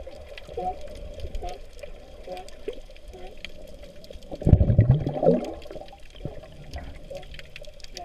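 California sea lions calling underwater, heard through the water: short calls that bend up and down in pitch, repeating every second or so over a steady watery rush. About four and a half seconds in comes one louder, deeper burst of sound.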